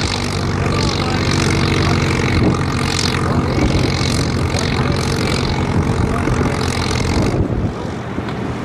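Vintage tractor engine running hard under load as it drags a weight-transfer sled, a steady, loud drone. About seven seconds in, the higher part of the sound drops away and it quietens a little.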